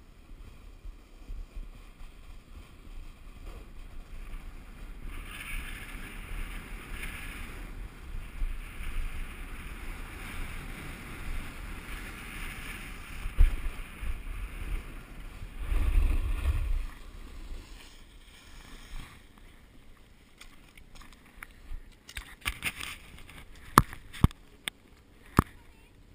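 Skis hissing and scraping over packed snow during a downhill run, with wind buffeting the microphone and a heavy low thud about two-thirds of the way in. Near the end the sliding dies away and several sharp clicks and knocks follow.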